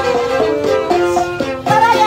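Tausug gabbang, a bamboo xylophone, played in quick runs of struck notes, with a violin alongside; a gliding melody line comes in near the end.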